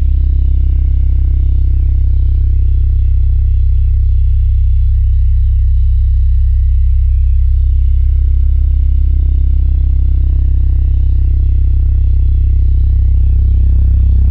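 A loud, steady low electronic drone, a deep hum that holds unchanged and swells slightly near the end.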